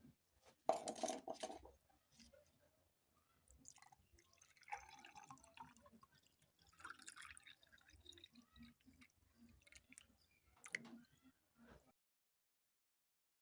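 Water dripping and splashing in irregular bursts, the loudest splash about a second in; the sound cuts out to complete silence near the end.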